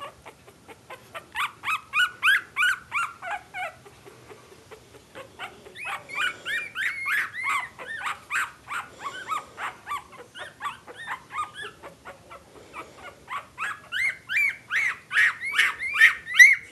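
Two-week-old puppies squealing and whimpering in quick runs of short, rising-and-falling cries, several a second. The cries come in three bouts: about a second in, from about six to ten seconds, and again from about thirteen seconds on, loudest near the end.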